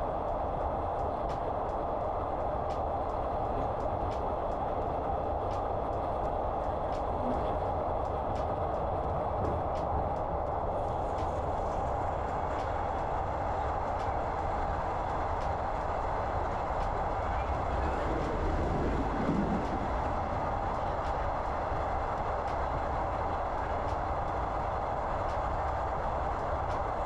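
Train running steadily, heard from inside the passenger car: a continuous rumble with a steady hum, and faint regular ticks during the first ten seconds or so.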